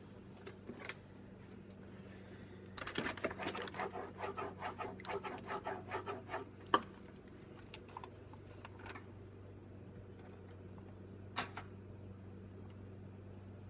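Paper bag of powdered sugar being handled and measured out: a quick run of small clicks and rustles for a few seconds, then scattered single clicks, over a faint steady low hum.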